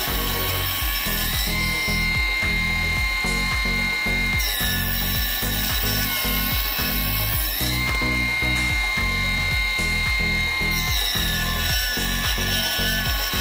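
Mini benchtop table saw running and cutting through a pine block fed with its miter gauge, its motor whine stepping up and down in pitch every few seconds, with background music.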